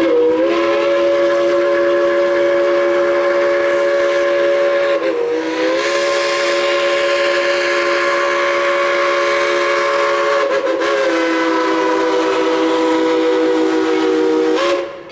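Steam locomotive's chime whistle blown in one long blast, several notes sounding together as a chord. It rises in pitch as it opens, sags briefly twice, and cuts off near the end.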